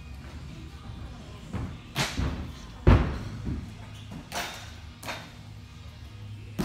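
Gymnasts' feet and hands landing on balance beams: a series of separate thuds, the loudest about three seconds in.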